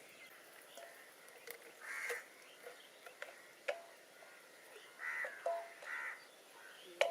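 A crow cawing three times, short harsh calls about two seconds in and again near the end, with a few sharp clicks or knocks in between.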